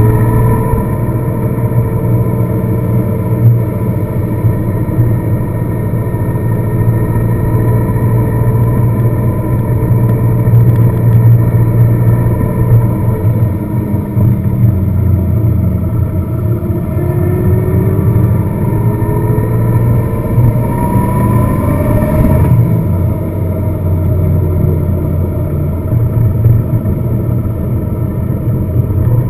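Car engine and road noise while driving, with a steady low hum. The engine note climbs slowly several times and drops back, once sharply about 22 seconds in.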